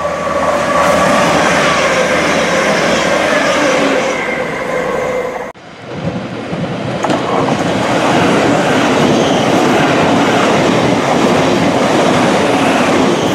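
Grand Central Class 180 diesel multiple unit passing at speed, its engine and transmission tone sinking slowly in pitch over rail noise. After a sudden cut about five and a half seconds in, a Thameslink Class 700 electric multiple unit rushes past, with wheels clattering over the rail joints.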